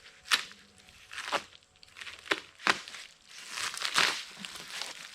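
A shipping box and its packing being opened by hand: crinkling and tearing, with four sharp snaps and a longer rustle about four seconds in.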